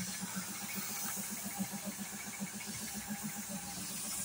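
Air spray gun hissing as it sprays white paint onto a car body panel, over a motor running in a steady low pulse about five to six beats a second.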